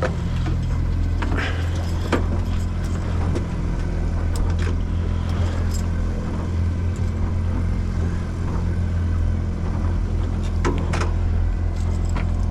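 Fishing boat's engine running steadily with a low drone, with a few scattered short clicks and knocks.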